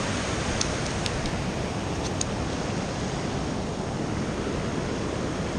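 Steady rushing of water pouring over a low spillway dam, with a few faint light clicks in the first couple of seconds.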